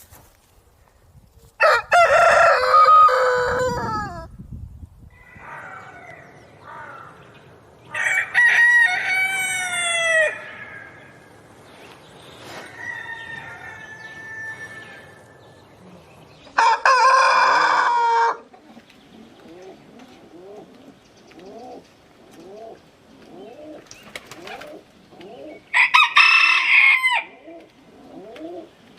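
Roosters crowing: four loud, long crows a few seconds apart, with quieter bird calls between them.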